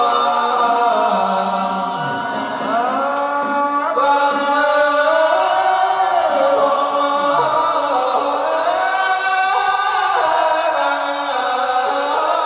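Group of monks chanting a Hue-style Buddhist ritual chant together, men's voices holding long notes that slide up and down.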